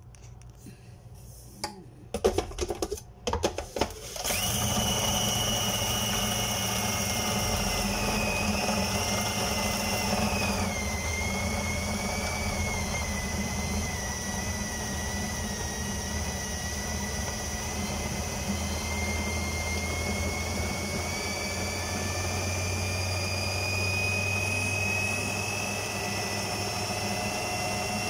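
A few clinks and knocks, then about four seconds in an electric food processor's motor starts and runs steadily, blending bananas into banana bread batter. Its whine dips around ten seconds in and slowly rises again toward the end.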